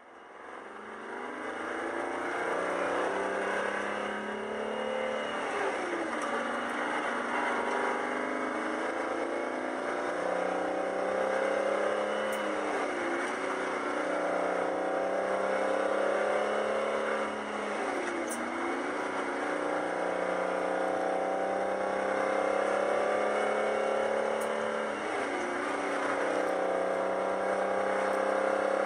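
Detroit Diesel 12V71 two-stroke V12 diesel in a truck pulling on the road, heard from inside the cab. The engine note runs steadily, dipping briefly and climbing back about every six seconds.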